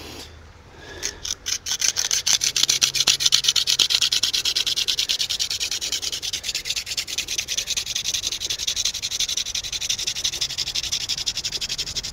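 Hand drill friction fire: a cattail spindle spun back and forth between the palms, its tip rubbing in the notched socket of a cottonwood-root hearth board. It gives a fast, even rhythm of rasping strokes that starts about a second in.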